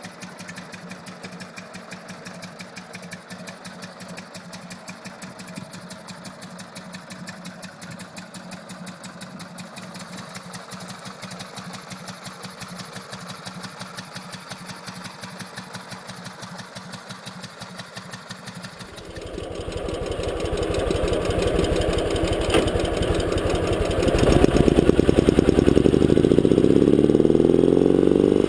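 Motorcycle engine running at an even idle, a fast steady pulse. About two-thirds of the way through it becomes much louder and deeper, and louder again a few seconds later.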